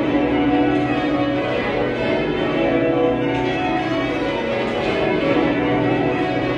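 Bath Abbey's church bells being change rung: a continuous, steady run of bells struck one after another, their ringing tones overlapping.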